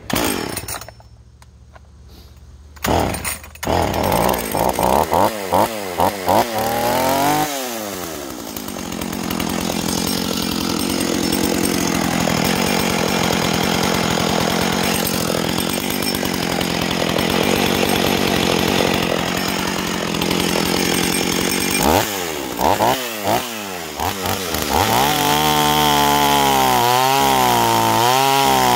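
Husqvarna 44 two-stroke chainsaw, its carburettor set rich on purpose, blipped through several quick revs, then running at a steady speed, blipped again, and from about 25 s held at high revs cutting into a log, the pitch wavering under load.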